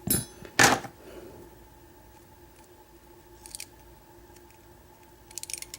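Metal parts of a gutted Master Lock 141DLF padlock being worked with a small tool while freeing a spring stuck in a pin chamber: two loud scraping clicks near the start, then light metallic ticks about three and a half seconds in and again near the end.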